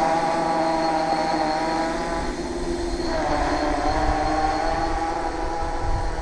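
Tarot FY680 hexacopter's electric motors and propellers whining in flight, several tones that dip about two and a half seconds in and climb back as the throttle changes, over a low rumble.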